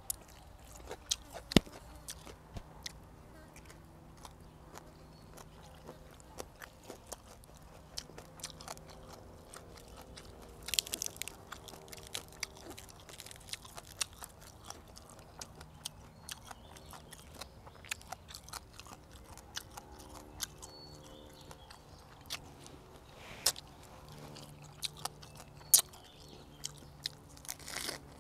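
Close-up chewing and crunching while eating whole spicy stir-fried frogs, with frequent sharp crunches of small frog bones. The loudest crunches come about a second and a half in and again near the end.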